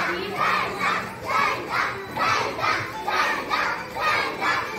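A crowd of young children shouting together in a rhythmic chant, about three shouts a second.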